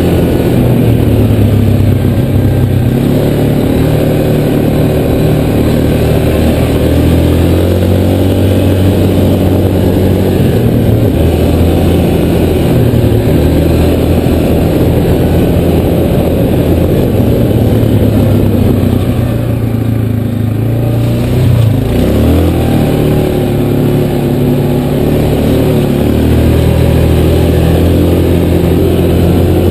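Engine of a small off-road vehicle running under load along a rough dirt trail, its pitch rising and falling with the throttle. It eases off briefly about twenty seconds in, then revs back up.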